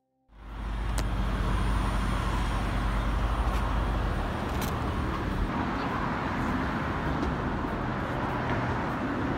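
Steady outdoor din of road traffic, with a deep rumble during the first four seconds or so and a few faint clicks.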